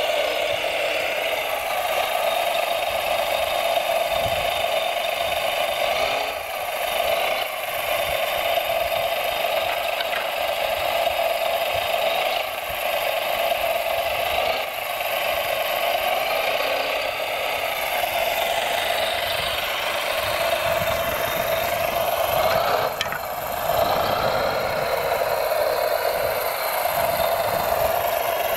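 Small electric motors and gearing of radio-controlled model trucks whining steadily, with a light rattle; the whine dips briefly a few times.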